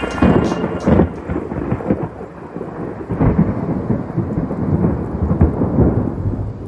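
Thunderstorm: rolling thunder over rain, the rumble swelling and fading several times.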